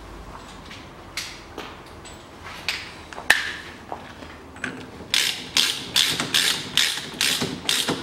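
Ratchet wrench clicking in quick back-and-forth strokes on the front hub nut of a VAZ-2110, about two to three clicks a second from about five seconds in, after a few scattered clicks and knocks.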